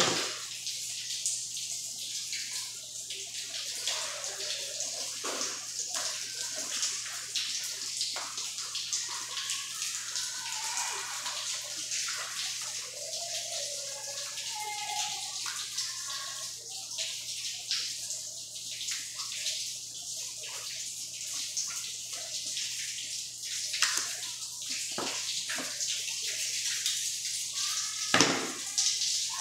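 Steady background hiss in a meat cutting room over a low hum, broken by a few sharp knocks, the loudest near the end.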